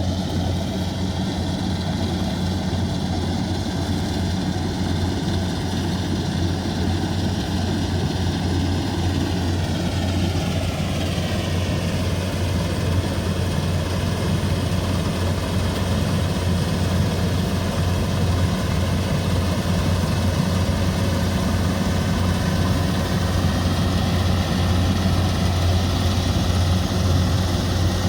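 Rice combine harvester's engine running steadily with a deep hum. The hiss above it sweeps down in pitch about ten seconds in, then holds steady.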